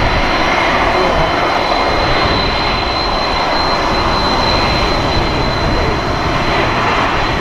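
Boeing 747-400 freighter's four turbofan engines running at taxi power as it taxis: a steady jet rumble with a high, steady whine.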